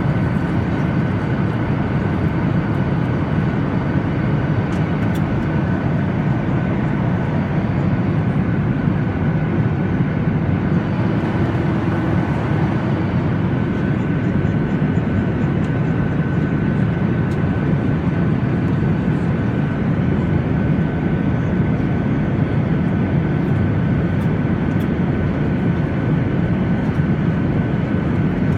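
Steady cabin noise of a jet airliner at cruise: an even roar of engines and airflow, with a thin steady high whine running through it.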